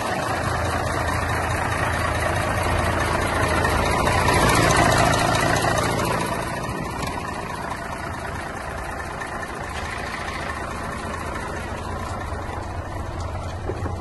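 Six-cylinder diesel engine of a Mercedes-Benz 1824 dump truck idling with a steady low hum, louder a few seconds in and then quieter.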